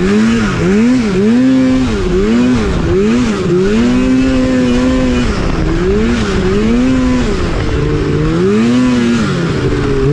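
Polaris mountain snowmobile's two-stroke engine running under throttle, its pitch swinging up and down about twice a second as the rider blips the throttle, with a couple of steadier stretches at held revs in the middle.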